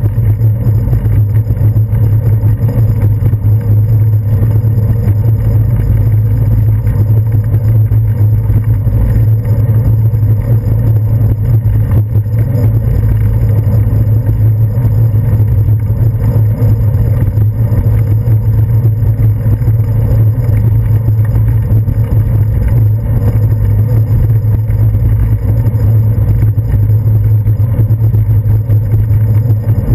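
Steady, loud low rumble of wind buffeting and road vibration picked up through a handlebar-mounted GoPro camera in its housing as the bicycle rolls along a paved path.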